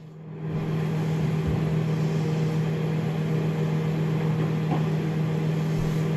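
A steady low machine hum with a constant low tone, with a faint tick or two.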